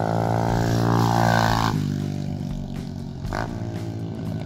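125cc TaoTao DB17 pit bike single-cylinder four-stroke engines running: a steady idle close by, and a bike riding past about a second in, its engine note falling as it goes by.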